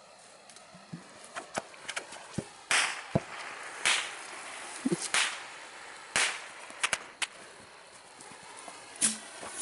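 Bottle rockets going off: an irregular string of sharp pops and cracks, the louder ones with a short hissing tail.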